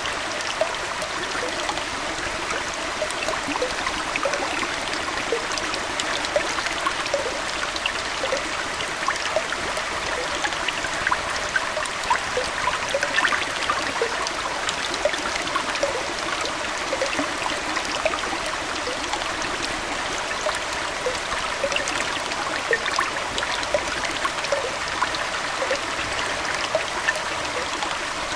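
Aquarium water flowing and trickling steadily like a small stream, with many small bubbly plinks throughout.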